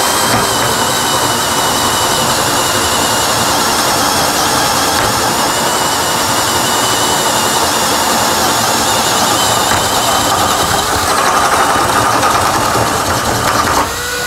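Bosch GSB 185-LI 18 V cordless drill/driver boring a hole with a 35 mm bit under heavy load: a steady, loud motor whine and cutting noise that stops just before the end.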